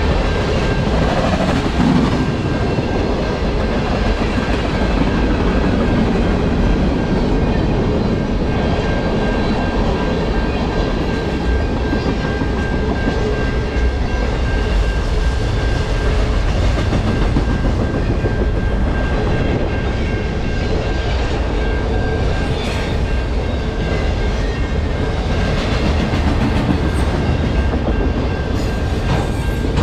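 Long freight train of tank cars and autorack cars rolling past on the near track: steady wheel-on-rail noise, with a thin high ringing tone over it.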